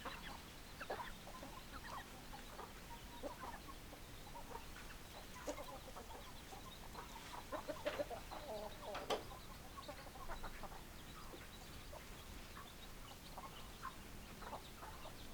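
Chickens clucking: many short hen clucks scattered throughout, coming thickest about halfway through.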